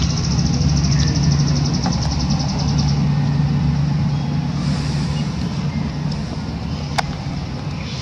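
Low, steady motor rumble with a held low hum, easing slightly in the second half. A fast, high, pulsing buzz runs for the first three seconds, and there is one sharp click about seven seconds in.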